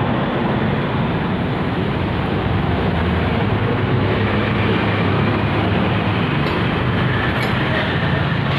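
Steady rush of engine, wind and road noise from riding a Hero HF Deluxe motorcycle, running evenly without letting up.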